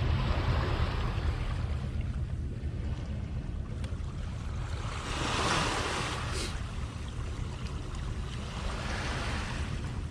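Sea waves washing onto the shore, a surge swelling about five seconds in and another near the end, over a steady low rumble of wind on the microphone.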